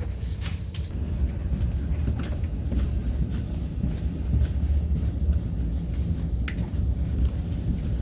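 Steady low rumble of a moving vehicle heard from inside it, with a few faint clicks and knocks scattered through.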